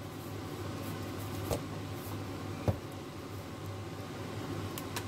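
Steady low hum of a kitchen with two short clicks, a faint one about one and a half seconds in and a sharper, louder one a second later.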